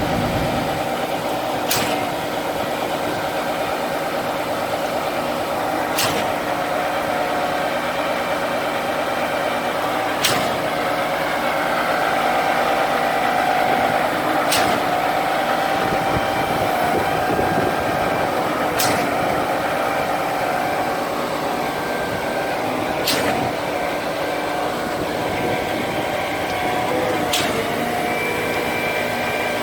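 Volvo truck-mounted concrete pump running steadily, with a sharp knock about every four seconds as the pumping cylinders change over on each stroke.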